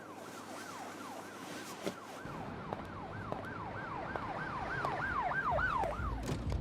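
Emergency vehicle siren in fast yelp mode, sweeping up and down in pitch about two to three times a second and growing louder as it goes, with a low rumble underneath from about two seconds in.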